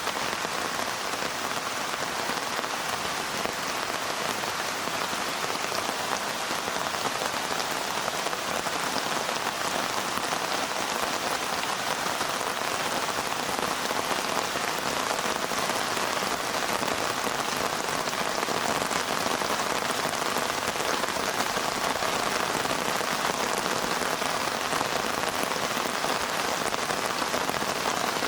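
Heavy rain falling steadily, a dense, even patter of drops with no letup.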